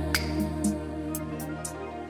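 Background music: steady sustained low bass notes with light, sharp percussive ticks over them.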